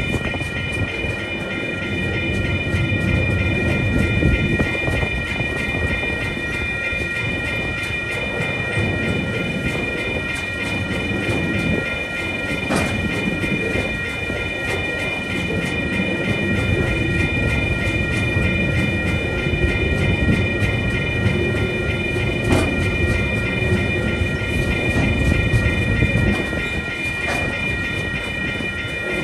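Container wagons of a freight train rolling steadily past over a level crossing, the wheels clattering over the rail joints, with a few sharper clanks. A steady ringing tone from the crossing's warning bell sounds throughout.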